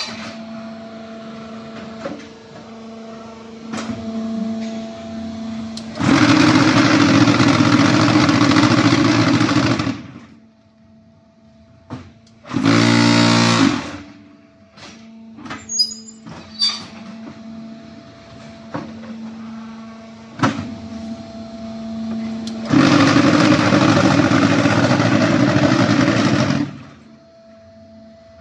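Automatic concrete hollow block machine with hydraulic pressing running through its moulding cycle: a steady hydraulic pump hum with scattered clunks. Twice the vibrators shake the mould for about four seconds to compact the concrete, very loudly, and there is a short burst of vibration in between.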